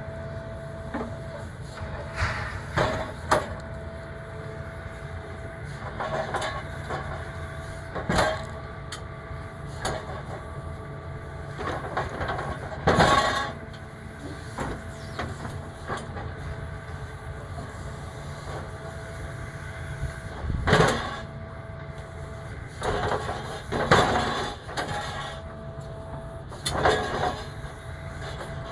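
Tracked demolition excavator running steadily, with a thin steady whine that drops out now and then, while its grab handles steel antenna tubes: repeated metal clanks and scrapes every few seconds, several of them loud.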